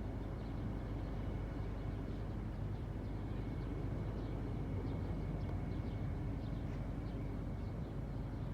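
Air-conditioning unit running, a steady low hum and rush with a faint constant high whine.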